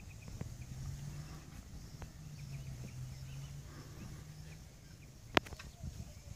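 Quiet outdoor ambience: faint chirps over a low steady hum that fades out about two-thirds of the way through, then a single sharp click about five seconds in.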